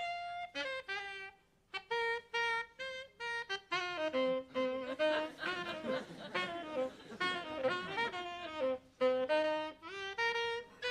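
A solo saxophone playing a melody in short phrases of separate notes, with brief gaps between phrases.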